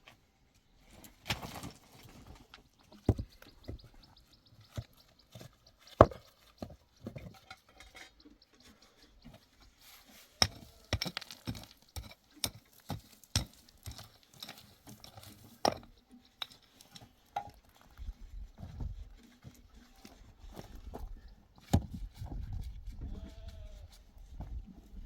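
Irregular sharp knocks and clicks, many in a row with the loudest about six seconds in, and a low rumble twice in the second half.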